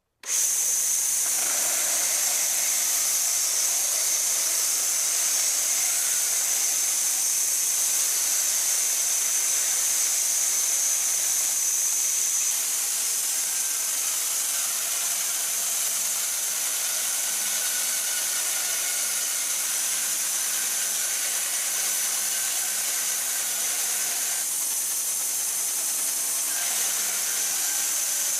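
Homemade machine tool running with a steady high hiss that starts abruptly.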